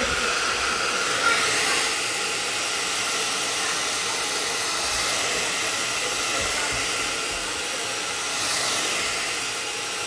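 Handheld hair dryer running steadily, blowing air while long hair is blow-dried.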